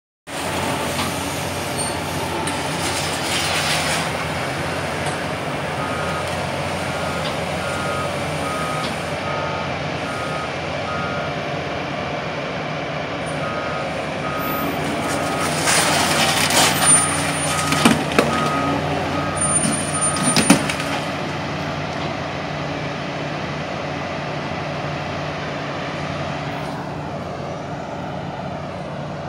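Diesel engine of a wheeled scrap-yard material handler with a grapple running steadily, its alarm beeping in two alternating tones through the middle stretch. About halfway through come several loud crashes and clangs of scrap metal being handled.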